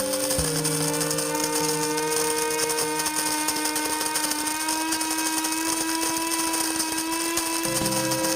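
Cuisinart DBM-8 Supreme Grind electric burr mill grinding coffee beans on a medium setting: a steady motor whine whose pitch creeps slightly upward, winding down at the very end as the automatic grind finishes.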